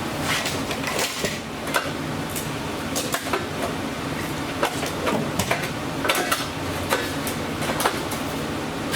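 Irregular metallic clinks and clicks of hand tools working rusted sheet metal on a car's radiator core support, as rusty pieces are nipped and pulled out, over a steady low shop hum.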